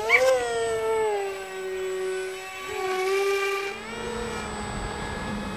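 Brushless electric motor and pusher propeller of an X-UAV Mini Talon RC plane at full throttle for a hand-launch: a whine that peaks sharply as the plane is thrown, then holds high and steady as it flies off. About four seconds in, the sound changes to a steadier, rougher drone of motor and wind.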